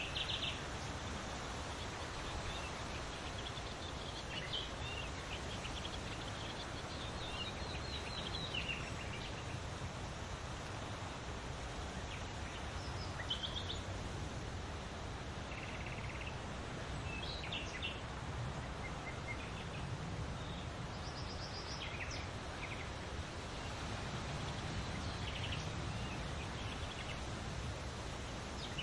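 Outdoor grassland ambience: a steady noisy hiss with scattered short songbird chirps and trills throughout.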